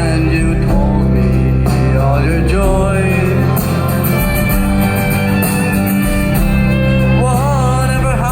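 Live band playing a slow ballad: sustained low chords with a wavering melody line over them.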